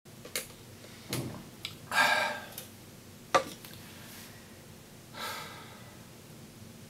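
A person sipping a drink through a straw from a paper cup, with a few sharp mouth or cup clicks and two loud breaths, about two seconds in and again about five seconds in.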